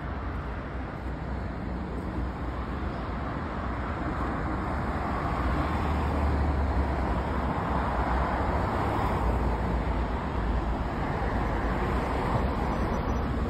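LiAZ-5292 city bus driving, its engine drone and tyre noise growing louder over the first half, then holding steady.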